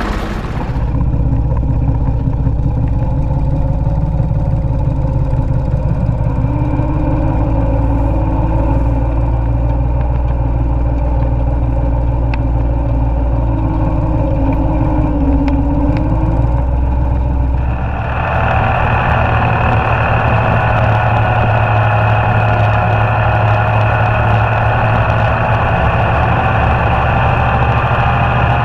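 Ford 2910 tractor engine running steadily under load, pulling two wagons loaded with square hay bales. About two-thirds through, the sound changes abruptly to a brighter, higher drone.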